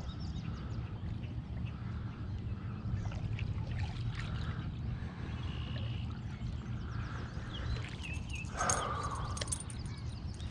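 Steady low rumble with faint bird calls over it, and a brief louder call-like sound about eight and a half seconds in.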